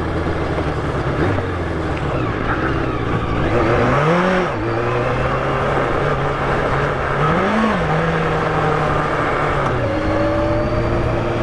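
Yamaha FZR1000's inline-four engine running at low speed on loose sand, with wind noise over it. The revs rise and fall briefly twice, about four seconds in and again about seven and a half seconds in.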